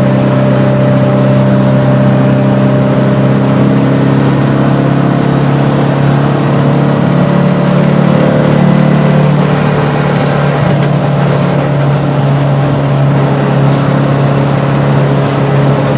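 A VW Beetle's modified 2275 cc air-cooled flat-four, with an FK8 cam and Weber IDF carburettors, running under way through a merge-collector competition exhaust, heard from inside the cabin. It is a steady, loud engine drone that rises a little around eight seconds in and then settles back.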